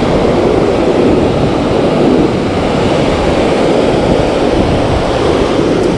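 Ocean surf washing in around the angler, a steady loud rush, with wind buffeting the microphone.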